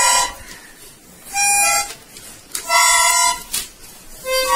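Child's plastic toy horn with coloured keys, blown in short, reedy separate notes at different pitches with short pauses between. One note ends just after the start, then come two more, and a fourth begins near the end.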